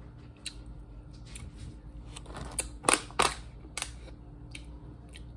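Plastic water bottle crinkling and clicking as it is picked up and opened for a drink, with a few sharp cracks close together about three seconds in.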